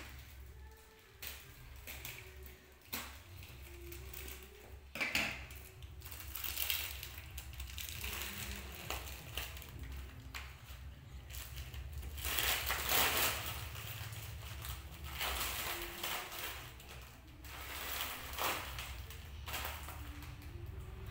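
Hands rustling and crunching the plastic wrapped around a potted plant's soil, with scattered clicks and crackles over a low steady hum.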